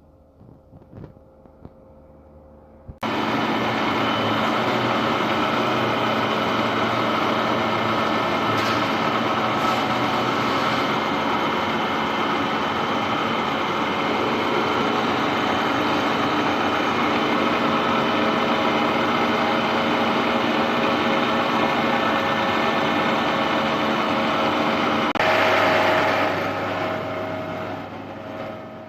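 ANAYAK fixed-bed CNC milling machine running: a loud, steady mechanical hum and whine with several steady tones. It starts suddenly about three seconds in, swells briefly near the end, then dies down.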